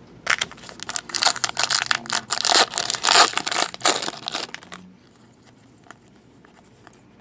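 Crinkling and tearing of a foil trading-card pack wrapper as a football card pack is torn open, with a dense run of crackles that stops about five seconds in.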